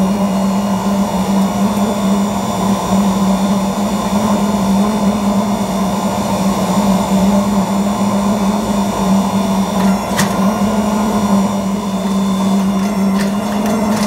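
Forge press running with a loud, steady hum as its dies slowly squeeze a glowing Damascus billet; a sharp click about ten seconds in and a few more near the end.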